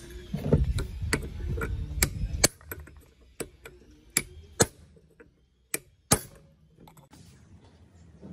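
Sharp clicks and knocks, like small hard parts and tools being handled, over a low rumble that stops about two and a half seconds in. After that the clicks come singly, with a few louder knocks near the middle.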